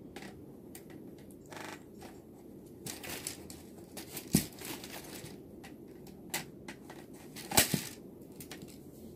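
Small clicks, scrapes and snaps of a computer keyboard's plastic parts and metal stabilizer wires being handled and pried off by hand. Two sharper clicks stand out, about halfway through and near the end.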